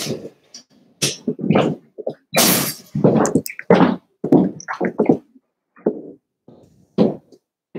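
Cavalier King Charles Spaniel puppies growling and yapping in a quick string of short bursts.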